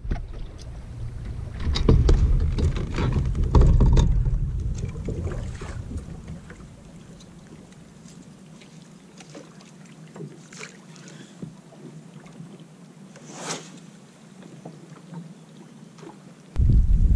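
Wind noise on the microphone and small waves lapping against a fishing boat's hull, with scattered knocks and clicks as fishing tackle is handled on the deck. The low wind rumble drops away about halfway through and comes back abruptly near the end.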